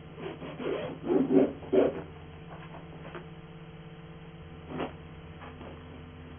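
Cloth rustling and scuffing as a bundle of clothes is handled and gathered up, loudest in the first two seconds, followed by a single soft knock about five seconds in, over a steady low hum.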